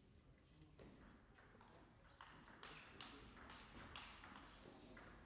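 Table tennis rally: the ball clicking off the rackets and the table in a quick, faint series of sharp ticks, starting about a second in.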